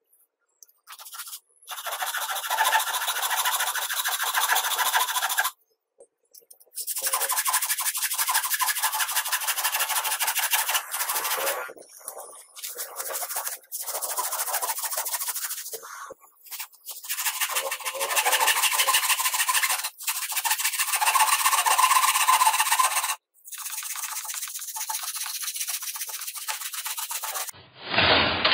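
Hand saw cutting through a thick wooden blank, in several stretches of steady sawing, each cut off abruptly. A single knock near the end.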